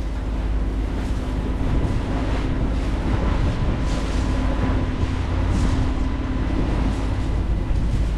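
Volkswagen 140 hp marine diesel of a Jeanneau 57 sailing yacht running steadily under way, a deep even rumble, over a steady hiss of wind and water.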